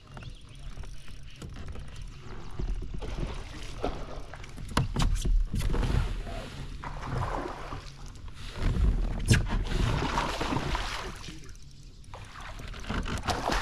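Water splashing and sloshing around a fishing kayak while a hooked bass is fought on the rod, coming and going in patches, with a few sharp knocks.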